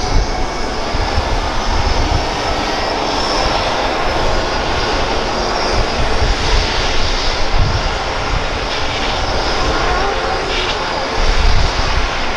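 Airbus (Eurocopter) EC135 P2+ helicopter running on the ground at full rotor speed before lift-off: its twin Pratt & Whitney PW206B turboshafts give a steady high whine over loud rotor noise. A deep rumble swells and fades irregularly underneath, loudest near the end.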